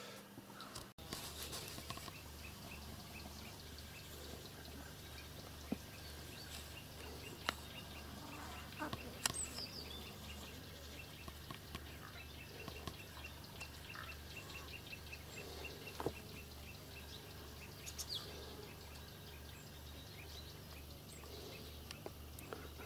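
Faint outdoor rural ambience: a steady low background with a high faint chirping repeating about four times a second, a few short bird chirps and scattered light clicks.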